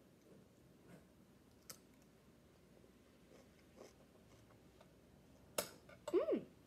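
Faint chewing of a caramel-dipped dill pickle: soft mouth clicks and crunches. Near the end, a sharper click and then a short hum that rises and falls in pitch.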